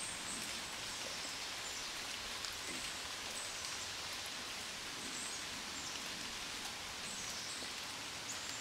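Steady outdoor background hiss with faint, high, falling chirps every second or so.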